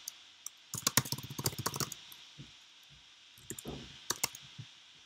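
Typing on a computer keyboard: a quick run of keystrokes about a second in, a few single taps, then another short run near the end.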